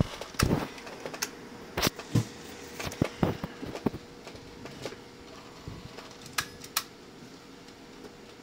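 Irregular sharp clicks and knocks, several in the first four seconds and two more past the middle, over a steady machine hum with a faint constant tone.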